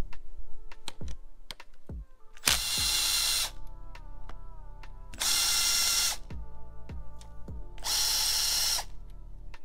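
Cordless impact driver run in three bursts of about a second each, backing out bolts on an engine block; background music with a steady beat plays under it.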